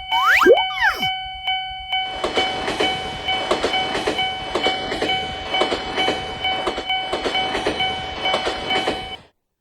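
Japanese railroad crossing warning bell ringing in a fast steady ding-ding, about two and a half strikes a second. A few swooping rising and falling tones sound in the first second, then a train passes from about two seconds in with a rapid clickety-clack of wheels over rail joints, everything cutting off suddenly near the end.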